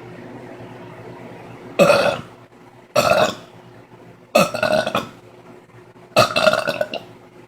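A woman burping loudly four times, a second or two apart, belching up gas from drinking soda; the last burp is the longest.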